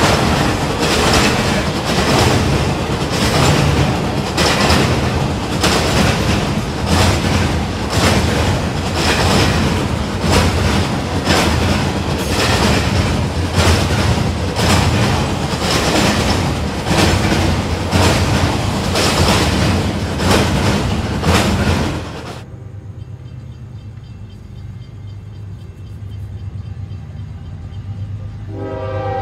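Double-stack intermodal freight cars rolling past at speed, their wheels clicking over the rail joints in a steady rhythm about once a second. The sound then drops to a quieter rumble, and near the end a diesel locomotive's horn starts to blow.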